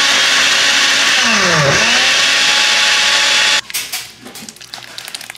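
Countertop blender running, pureeing soaked guajillo chiles. Its motor pitch dips and comes back up about a second and a half in, and it cuts off suddenly after about three and a half seconds. Light clicks and knocks follow as the puree is poured into a mesh strainer.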